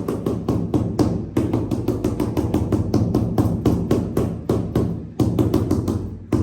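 A ceramic floor tile being knocked down repeatedly onto a loose mortar screed bed: a fast, steady run of knocks, about five or six a second. The tapping beds the tile and drives the air out from beneath it.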